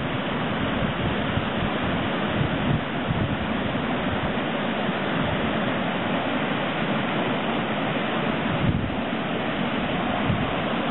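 Rain-swollen floodwater pouring over a drop into a pool and churning: a steady, even rushing.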